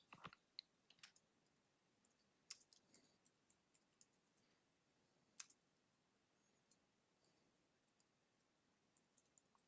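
Near silence with a few faint computer mouse clicks: several in the first second, then single clicks about two and a half and five and a half seconds in.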